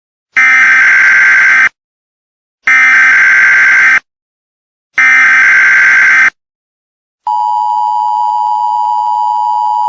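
Emergency Alert System SAME header: three identical bursts of screeching digital data, each a little over a second long with about a second between them. About seven seconds in, the steady two-tone EAS attention signal starts and holds.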